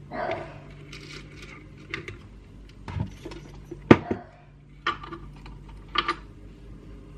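Metal hook and wire winch line being handled on a wooden bench: scattered light clicks and clinks, the sharpest about four seconds in.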